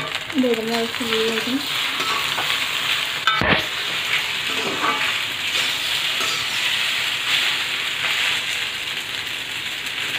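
Macaroni with chicken, egg and vegetables sizzling in an iron kadai, stir-fried with a metal spatula that scrapes and ticks against the pan. A single sharp knock comes about three and a half seconds in.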